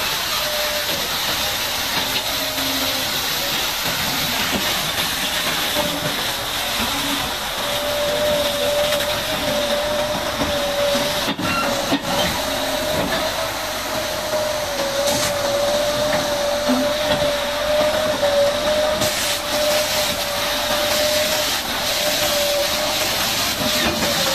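High-pressure water jet hissing steadily while washing down a bulldozer, with a steady whine underneath from about a third of the way in.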